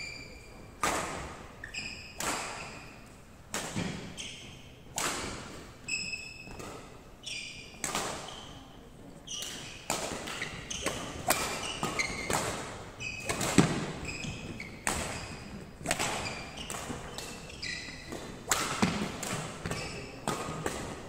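Badminton rally: sharp racket strikes on the shuttlecock about once a second, with short high squeaks of court shoes on the wooden floor between them. The hall's echo trails each hit.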